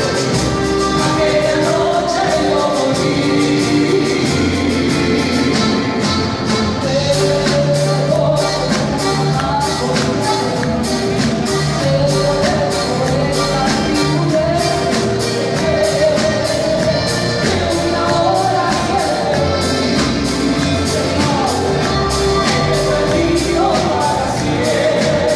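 Live band playing dance music with a singer: accordion, electric guitars, keyboard and drums over a steady beat, with a voice carrying the melody.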